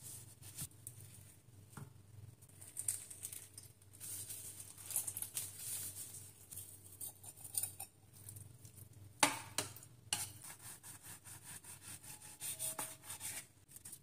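Quiet food-preparation handling: diced avocado being stirred and mixed in a bowl, with light utensil scrapes and clicks and one sharper knock about nine seconds in.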